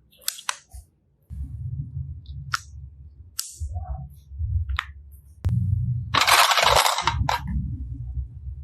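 Slime being worked by hand: sharp clicking pops over a low handling rumble, with a loud crackling squelch lasting about a second near six seconds in.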